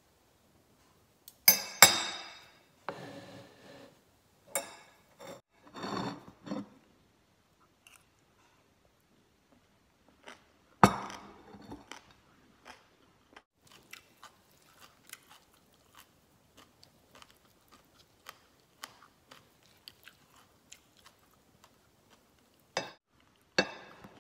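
A person chewing crunchy green papaya salad, with many small crunches through the middle. A few sharp clinks of a metal spoon and fork against the plate come near the start, about halfway, and near the end.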